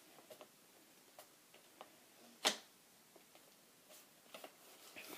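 Extendable stock of an electric airsoft rifle being handled and adjusted: a few faint clicks and taps, with one sharper click about two and a half seconds in.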